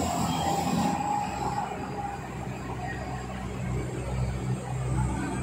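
Heavy diesel engine of a container reach stacker running steadily under load as it hoists another reach stacker off a trailer, with a whine that fades out about two seconds in.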